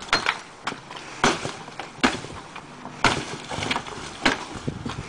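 Sharp blows on a concrete block wall being breached, about five strikes roughly a second apart, each followed by crumbling block and falling rubble.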